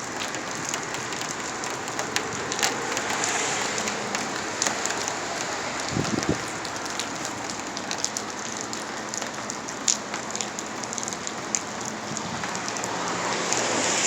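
Rain falling steadily as a thunderstorm arrives, with many sharp ticks of drops striking hard surfaces nearby.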